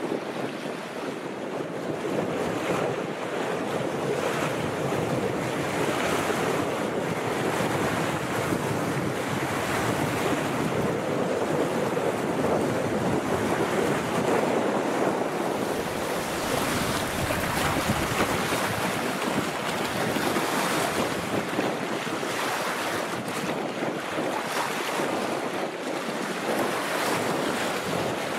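Wind-driven lake waves lapping and splashing against shore rocks, a steady, swelling wash of water. Gusty wind buffets the microphone.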